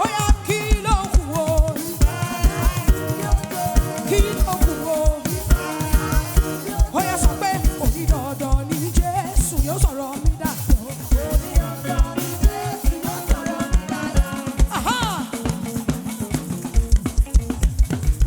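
Live gospel praise band playing an upbeat African-style groove, a steady drum-kit beat under melodic instruments.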